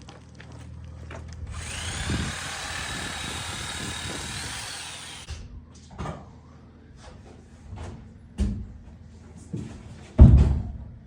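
A power tool runs for about four seconds with a high whine that rises as it spins up and falls as it stops. It is followed by scattered knocks and clicks, then a heavy thump near the end.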